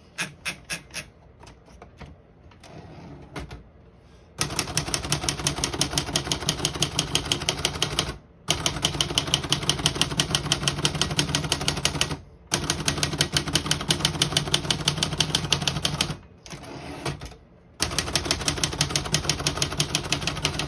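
Olivetti Lettera 25 manual portable typewriter being typed on. A few single key strikes come first, then four long runs of fast keystrokes, about eight or nine a second, with short pauses between runs. The keys strike cleanly without sticking.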